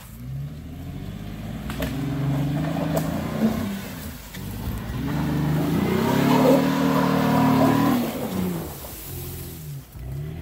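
Off-road Ford Mustang's engine revving up and down in several surges as the car drives along a dirt trail. It is loudest about six seconds in as it passes close, then fades as it pulls away.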